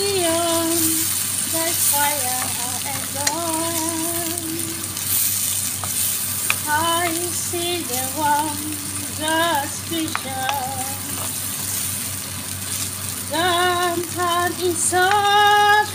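Diced bell peppers and onion in a creamy sauce sizzling in a nonstick frying pan while a wooden spoon stirs them, with a melody heard over the top at intervals.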